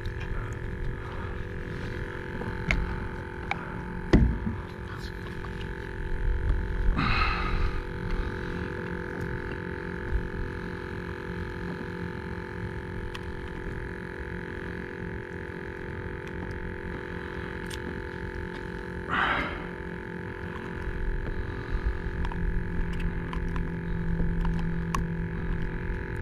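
Gear being handled aboard a plastic kayak: a sharp knock about four seconds in and a few light taps, plus two short hissy rustles, over a steady hum and low rumble.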